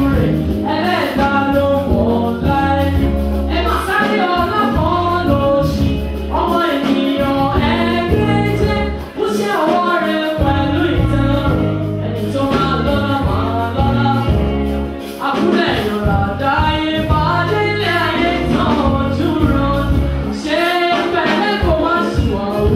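Gospel music: a lead singer backed by a choir, with a steady bass line under the melody.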